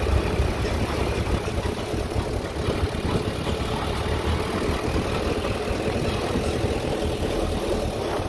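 Steady engine and running noise of a motor vehicle, a low even hum without changes in pitch.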